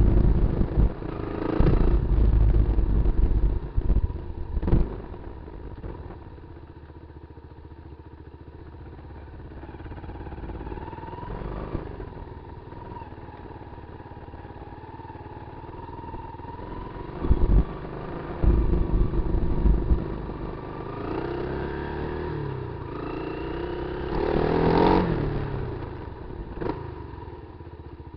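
Kawasaki KLR250's single-cylinder engine running as the motorcycle is ridden off road, its revs rising and falling with the throttle. Loud low rumbles break in during the first couple of seconds and again about two-thirds of the way through.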